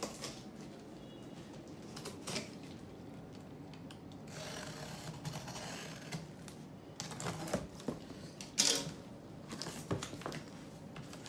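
Cardboard box being opened: a utility knife slicing through the packing tape, then the cardboard flaps pulled open and handled, with scattered clicks and knocks. The sharpest click comes about three-quarters of the way through.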